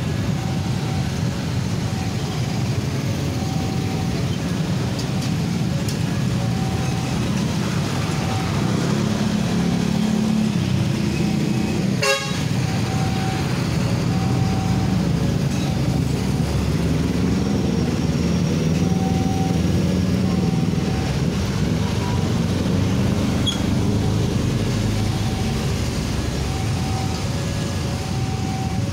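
Busy road traffic, a steady rumble of motorcycle and truck engines passing close by, with a short beeping tone repeating every second or two over it and one sharp click about twelve seconds in.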